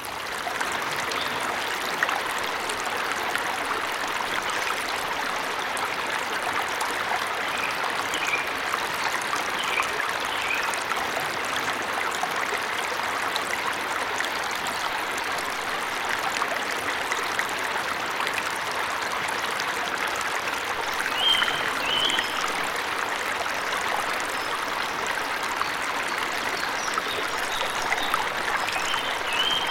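Waterfall in a forest, a steady rush of falling water. Short bird chirps come through it a few times, in the middle and near the end.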